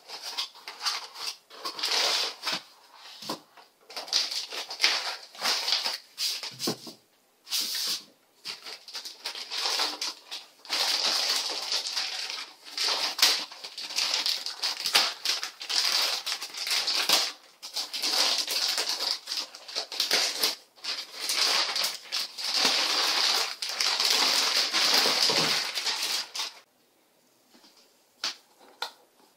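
Plastic packaging crinkling and rustling in irregular bursts as an audio interface is pulled out of its anti-static bag and clear plastic wrap. The rustling stops a few seconds before the end.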